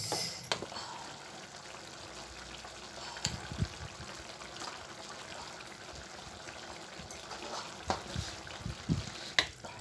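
Watery ridge gourd curry in a steel pot being stirred with a wooden spatula: liquid sloshing, with a few light knocks of the spatula against the pot.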